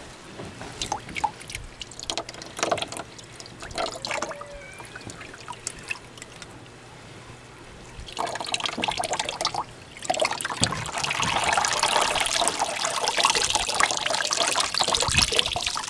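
Wet clothes pressed through a hand-cranked laundry wringer: scattered clicks and knocks from the crank and rollers at first, then from about eight seconds in a steady stream of wrung-out water pouring off the rollers into the tub.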